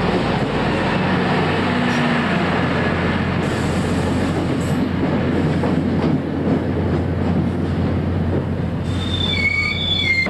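A diesel-hauled commuter train rolls past close by as it pulls into the station, with a steady low engine drone and the rumble of the coaches. Near the end a high wheel-and-brake squeal sets in as the train slows to stop.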